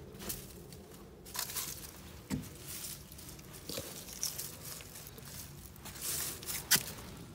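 A plush toy being pushed and dragged through dry leaves and bark mulch: irregular rustling and scraping, with a few knocks and one sharp click near the end.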